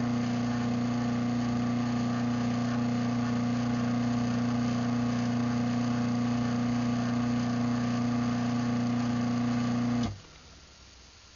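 Craftsman 1/2 hp garage door opener motor running steadily with an even electric hum through an opening cycle, stopping abruptly shortly before the end as it reaches its travel limit.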